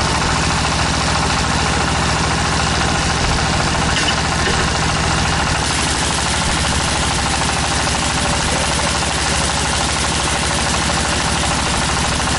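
Diesel engine of a tractor-mounted water well drilling rig running steadily at a constant speed.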